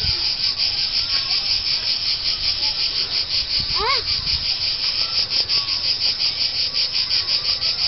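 Dense chorus of insects: a steady, high, pulsing buzz of about five pulses a second. About four seconds in there is one brief rising-and-falling squeal.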